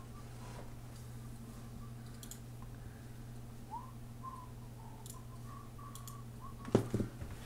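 Soft, wavering whistling of a tune in short notes, with a few faint clicks and a steady low hum underneath. Near the end come two quick thumps, the loudest sounds.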